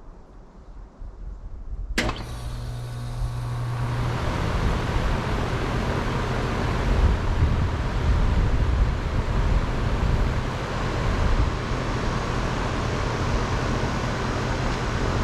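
A 2022 Comfort-Aire RSG14 2.5-ton air conditioner condenser starting up: a sharp click about two seconds in, the compressor's steady low hum coming on with it, then the condenser fan spinning up over the next couple of seconds to a steady rush of air.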